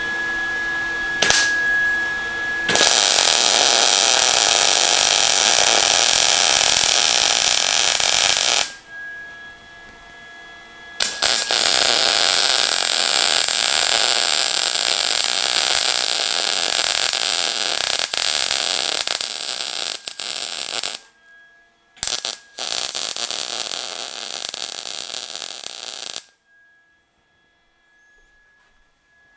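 Electric arc welding on quarter-inch steel plate: the arc crackles and hisses in three runs. The first lasts about six seconds, the second about ten, and the third about four, ending a few seconds before the end. Between the runs a faint steady electrical hum is left.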